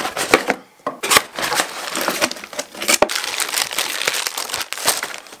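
Plastic bubble wrap crinkling and crackling as it is unwrapped by hand, with many sharp crackles and a short lull about half a second in.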